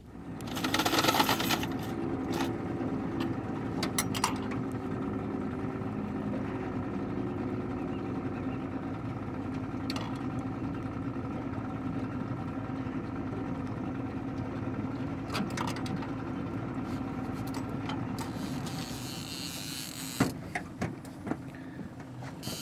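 Boat motor running steadily at low speed. It eases off about eighteen seconds in, followed by a few short knocks.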